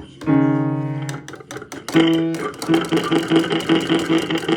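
Music with plucked guitar-like notes: a held note in the first second, then a quick, even run of plucked notes from about two seconds in.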